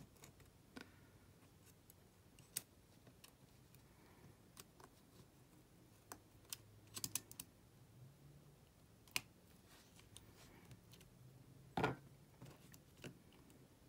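Faint scattered clicks and light taps of metal tweezers picking at small parts inside an opened iPhone 6s, trying to free a part that won't come out easily. A quick run of clicks comes about seven seconds in, and a louder knock near the end.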